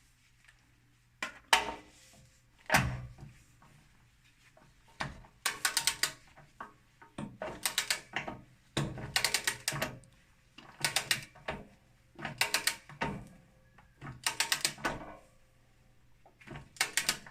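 Ratchet wrench clicking in quick bursts, one stroke every second and a half to two seconds, as the new anode rod is tightened into the top of the water heater.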